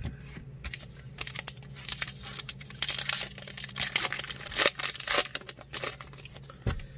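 A trading card pack's wrapper being torn open and crinkled by hand: a run of irregular sharp crackles, busiest from about three to five seconds in.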